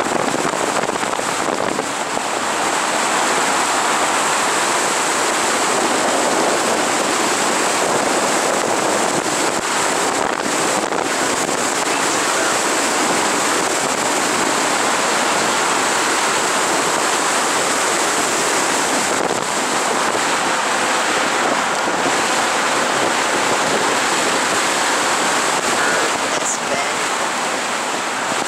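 Wind rushing over the microphone of a camera held out of the window of a slowly moving car: a loud, steady noise.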